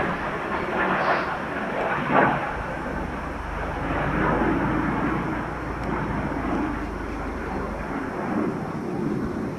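An aircraft flying overhead: a steady, continuous engine drone, with louder swells about one and two seconds in.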